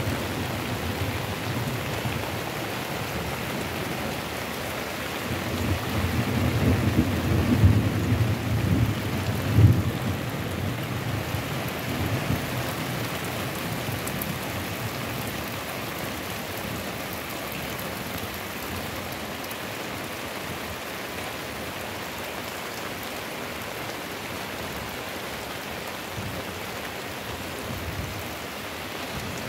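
Heavy rain pouring steadily. A low rumble of thunder swells from about five seconds in and fades after about ten seconds.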